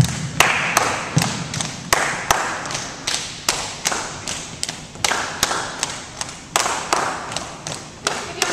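Tinikling poles tapped on the gym floor and knocked together in rhythm, a steady beat of sharp knocks about two to three a second.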